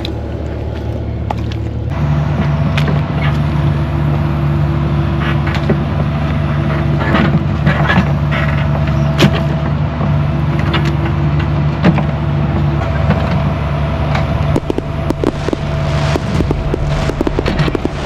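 Mini excavator's diesel engine running steadily, stepping up in level about two seconds in as it is throttled up, with scattered knocks and clanks from the bucket and machine as it digs out a drainage ditch.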